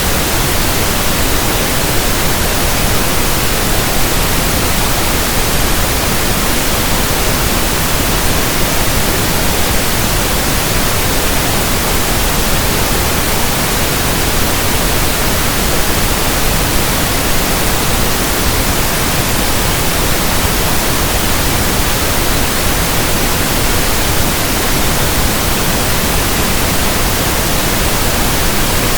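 Steady synthetic pink noise: an even, unbroken hiss across all pitches that does not change.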